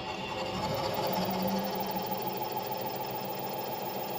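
Small metal lathe running steadily, its motor and spindle giving an even whir, as the cutoff tool is fed into the spinning aluminum ring blank.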